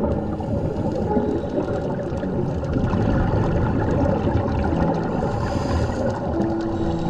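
Steady, muffled water noise: a dense low rumble with no clear pitch.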